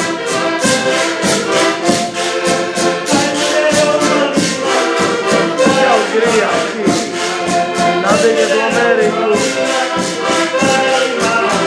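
Portuguese folk ensemble playing: diatonic button accordions hold a steady chordal melody over a regular beat from a bass drum and a split-cane rattle. A man's singing voice comes in at times, around the middle and again a little later.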